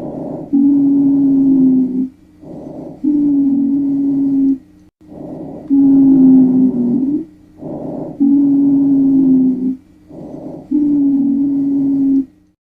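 Recorded breath sounds with a low-pitched wheeze (rhonchus): about five breaths, one every two and a half seconds, each a short sound followed by a longer one carrying a steady low musical tone. This is the sign of narrowed airways.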